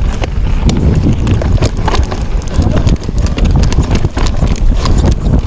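Mountain bike clattering over rough ground, with many irregular knocks and rattles, and wind rumbling on the microphone.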